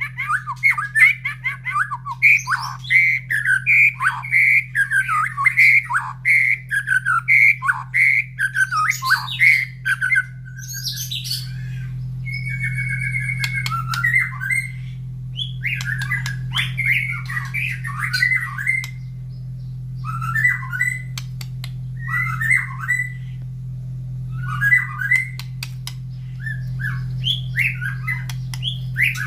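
White-rumped shama singing loudly. For about the first ten seconds it gives a quick string of repeated sharp notes, then it moves on to varied phrases broken by short pauses, over a steady low hum.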